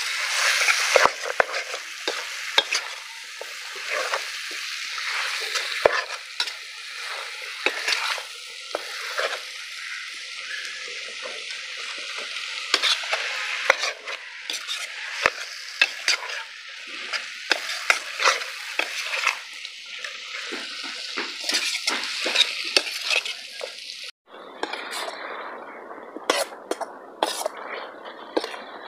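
Chicken pieces and masala frying with a steady sizzle in a metal kadai, stirred with a metal ladle that scrapes and clinks against the pan. About 24 seconds in the sizzle cuts off abruptly and returns duller, with scattered clinks.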